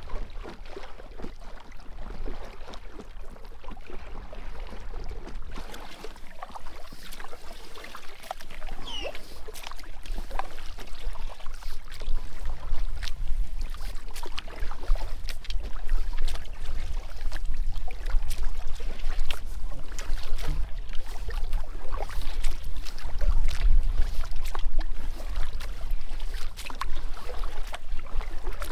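Kayak paddling on a lake: the paddle blades dip and splash at an irregular rhythm, over a steady low rumble. It gets louder about halfway through.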